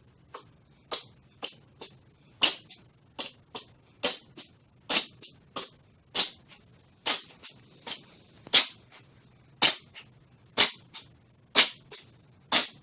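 A cat sneezing again and again in a long fit, short sharp sneezes about once a second with fainter ones between.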